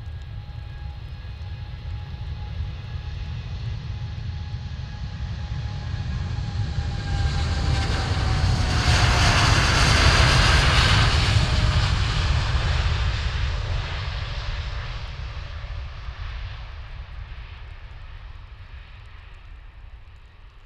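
Airliner flying past at close range: the engine noise builds steadily for about eight seconds, peaks, then fades away, with a whine that drops in pitch as the aircraft goes by, over a deep rumble.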